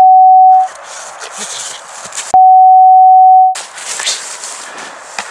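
Loud, steady test tone of a bars-and-tone signal, the beep that goes with colour bars. It sounds for under a second at the start, breaks off into a rough hiss, and comes back for about a second in the middle before cutting to the hiss again.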